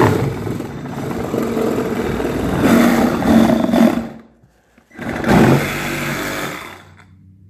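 Compact cordless reciprocating saw running, its blade sawing through the seam of a cardboard box. It runs for about four seconds, stops briefly, then runs again for about two seconds.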